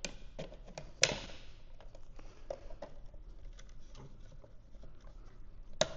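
Plastic parts of a Honda Civic fuel pump assembly clicking and knocking as the pump is worked by hand down into its plastic reservoir bucket. There is a string of small ticks, with sharper clicks about a second in and just before the end.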